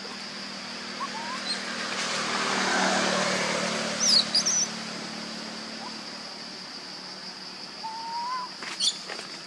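Outdoor ambience: a steady high insect drone, with a rushing noise that swells and fades, peaking about three seconds in. Birds give a few short high chirps about four seconds in and a brief rising whistle near the end.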